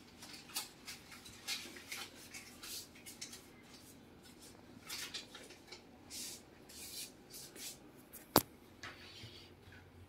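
Soft, irregular rustling of bedding and fabric as a cat moves about on a bed and is stroked by hand, with one sharp click a little over eight seconds in.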